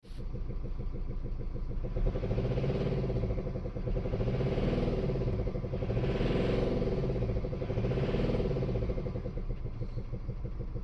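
Mercedes OM654 four-cylinder diesel engine running with a rapid, rhythmic knock from the valvetrain, its pitch rising and falling several times. The knock comes from a broken camshaft, rocker arms and lifters.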